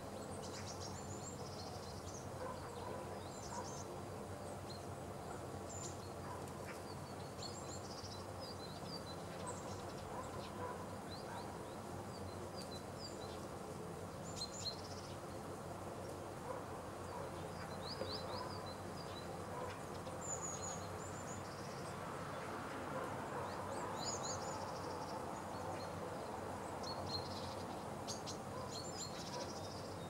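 Small songbirds giving short, high chirps and calls, scattered irregularly throughout, over a steady background noise.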